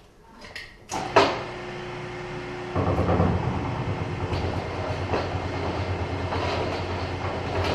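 Gorelocker DCP 1000 gore-locking machine starting with a clunk and a motor whir, then running with a steady rumble and repeated knocks from about three seconds in as its rollers close the gore lock seam on a spiral duct elbow gore.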